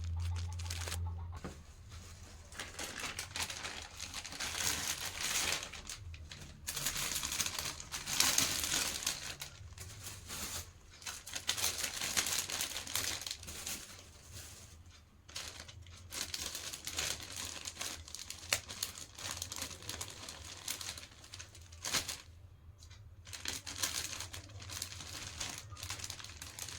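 Plastic snack packets crinkling and rustling as they are handled and packed, coming and going in uneven bursts.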